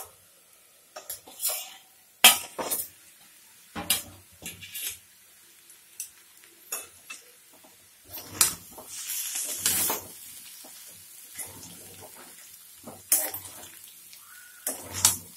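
Metal clanks and knocks as an upturned steel plate used as a lid is handled on a metal wok and a spatula strikes and scrapes the pan, with a short stretch of sizzling from the frying potato cubes partway through.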